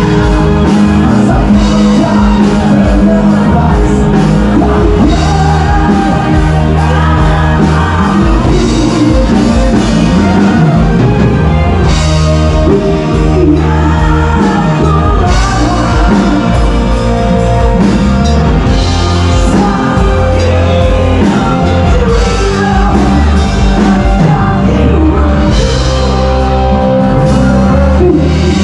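Live rock band playing a song with a singer, loud and continuous.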